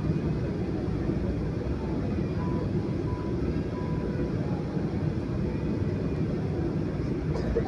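Steady low rumble inside the cabin of a Boeing 737-800 taxiing after landing, its CFM56 engines at idle.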